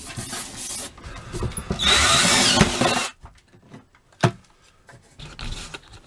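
Cordless drill boring through a wooden cabinet wall, running hard for about a second in the middle with a high whine. About a second after it stops there is a single sharp knock.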